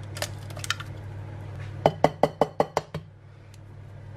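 An egg being cracked over a glass mixing bowl: a few light shell clicks near the start, then a quick run of about seven sharp taps and cracks around the middle. A steady low hum from the preheating oven runs underneath.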